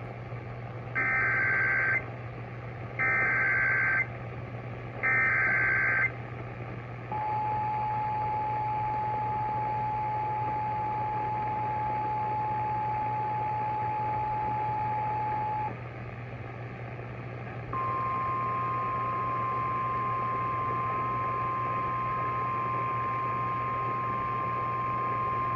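Emergency Alert System tones: three one-second bursts of SAME header data warble, a second apart, then a long steady attention tone. After a short gap a second, slightly higher steady tone begins and runs on.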